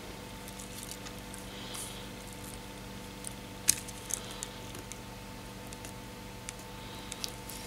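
Small clicks and light scraping as fingers handle an iPhone 6 display assembly and its tiny parts, with one sharp click a little past the middle. A steady electrical hum lies under it.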